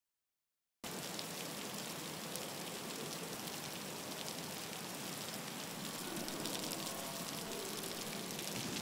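Heavy rain pouring down on trees and ground, a steady dense hiss that cuts in suddenly about a second in after total silence.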